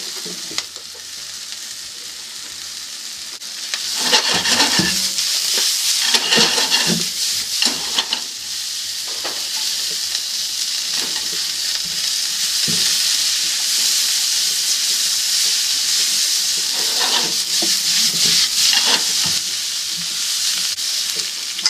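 Yakisoba noodles with chicken, leek and shishito peppers sizzling in a hot nonstick pan while being tossed with chopsticks, with the chopsticks now and then clattering against the pan. The sizzle is quieter for the first few seconds and louder once the tossing starts, as the remaining moisture cooks off.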